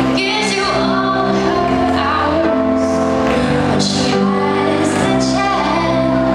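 Female solo singer singing a song into a microphone over instrumental accompaniment, with held chords under a moving sung melody.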